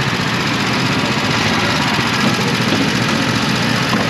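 Several small gasoline go-kart engines idling together, a steady unbroken running sound.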